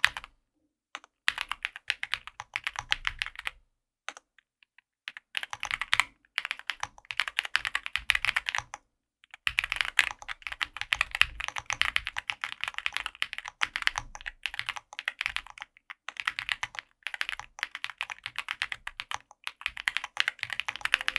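Fast typing on an Owlab Spring Alice-layout mechanical keyboard with stock Owlab Tungsten switches, an aluminium plate and PBT keycaps: dense runs of key clacks in several bursts, with short pauses between them.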